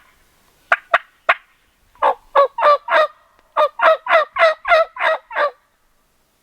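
Turkey yelping: a few short, sharp clucks, then a run of four yelps and a longer run of eight, each note breaking from a low pitch to a higher one.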